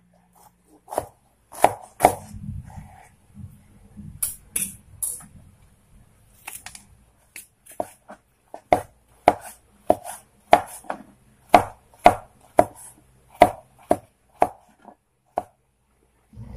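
Kitchen knife cutting bitter gourd on a wooden cutting board: a few irregular cuts at first, then a steady run of chops, about two a second, that stops about a second before the end.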